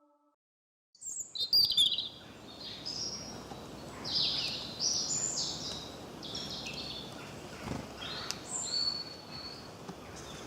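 Birds chirping and calling, many short high calls, several falling in pitch, over a steady faint background hiss. The birdsong starts about a second in, after a brief silence.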